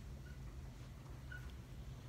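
Quiet room tone: a steady low hum, with two faint, very short high chirps.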